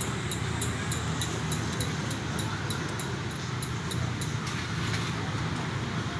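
Steady background noise with a low rumble, like street traffic. Over it runs a fast, regular high ticking, about three ticks a second, which stops about four seconds in.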